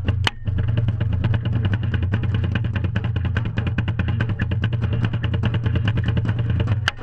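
Marching drumline playing a fast, steady run of drum strokes, picked up by a GoPro strapped to a bass drummer's harness, over a constant low rumble. Two sharper knocks stand out, one just after the start and one near the end.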